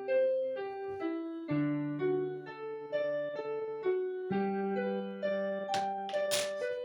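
Background piano music (electric keyboard sound), a melody of held notes that change about twice a second. Two brief noisy sounds occur near the end.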